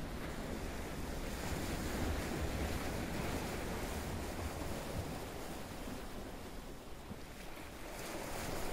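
Ocean waves washing ashore as a steady rush, swelling a couple of seconds in and again near the end.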